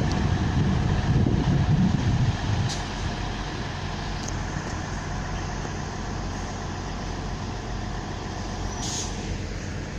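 A train standing or moving slowly at a station platform: a steady low mechanical hum, rumbling louder for the first few seconds, with short hisses of air from its brakes about three seconds in, again a second later, and once more near the end.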